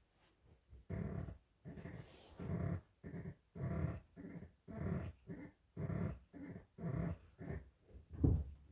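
Power recliner sofa creaking as hand pressure is put on it and let off: a series of creaks about one a second, the loudest near the end. A terrible creaking sound, which the owner puts down to something wrong in the sofa's top corner.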